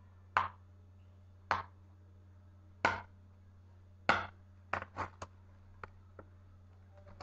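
Small hard fingerboard parts being handled, making about nine sharp clicks and taps at irregular intervals that come quicker in the second half. A low steady hum runs underneath.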